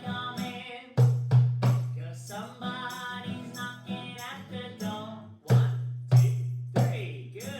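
A man singing a children's song to a drum: three loud drum beats about a third of a second apart, imitating knocking at a door, then a sung line, then three more beats.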